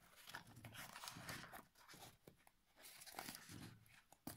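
Very faint rustling and light scraping of a ballistic nylon watch strap being worked off a watch box's cushion by hand.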